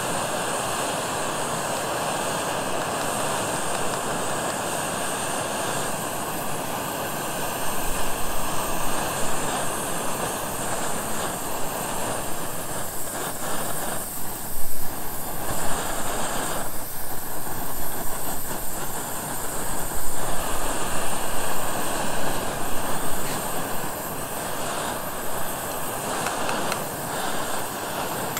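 LPG camping burner running with a steady hissing flame under a titanium pot of water; from about eight seconds in the sound turns louder and more uneven.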